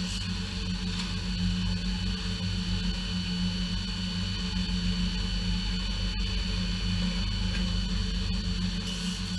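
Small horizontal/vertical metal-cutting bandsaw running steadily, its blade cutting through 1/2-inch round steel stock, a constant motor hum with a thin high whine over it.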